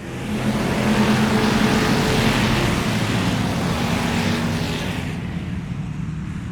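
Motor vehicle engine running steadily, its low hum under a broad hiss that swells over the first second. The hiss thins out about five seconds in while the engine hum carries on.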